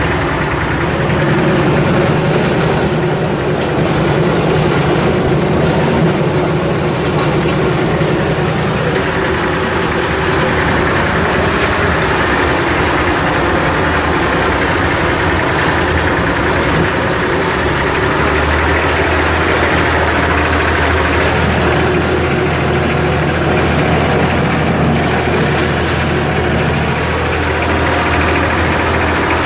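IMT 539 tractor's diesel engine running steadily while pushing a snow plough, its low engine note shifting about two thirds of the way through.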